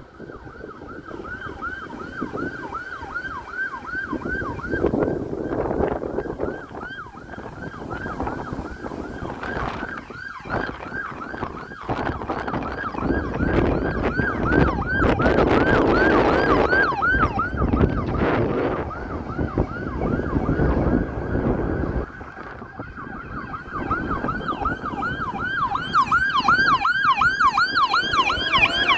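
A police patrol car's electronic siren on a fast yelp, quick rising-and-falling sweeps about three a second, over the car's engine and tyre noise; the siren grows louder over the last several seconds as the car comes closer.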